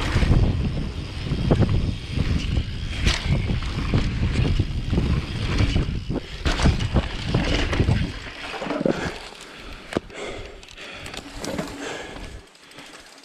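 Downhill mountain bike descending a rough trail: wind rushing over the mounted microphone, tyres on dirt and the bike rattling, with sharp knocks from bumps and landings. About eight seconds in the rushing drops away as it slows, leaving quieter rattles and knocks.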